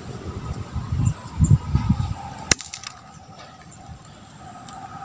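A single sharp air rifle shot about two and a half seconds in, with a few faint clicks just after. Before it there is low rumbling noise on the microphone.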